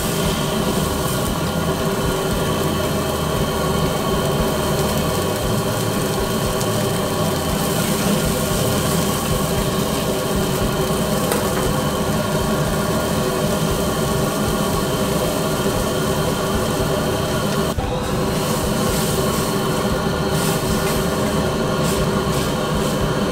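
Steady roar of a restaurant wok burner and kitchen extractor, with liquid boiling and sizzling in the wok as vegetables are stirred with a metal ladle.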